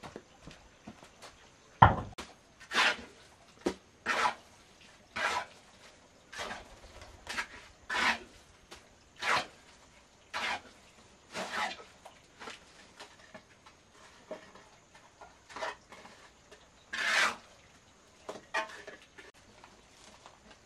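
Steel trowel scraping and turning wet cement mortar on a concrete floor in short strokes, about one a second. A single heavy thud near the start is the loudest sound.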